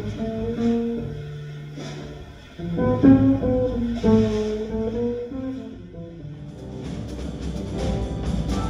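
Live jazz instrumental passage: a guitar playing a melodic line over bass notes, with light percussion coming in near the end.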